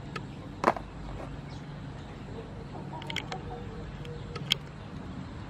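A few sharp clicks and snaps from trimming and cleaning river prawns over a metal pot of water. The loudest comes about a second in, with two lighter ones later.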